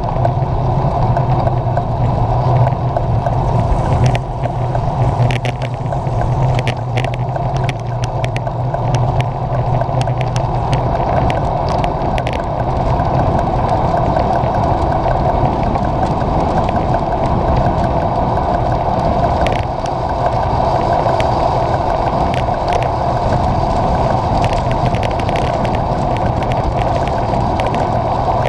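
Wind and road noise from a handlebar-mounted camera on a road bicycle riding a wet road: a steady, loud rush with scattered small clicks and rattles from the road. A low drone underneath fades out about eleven seconds in.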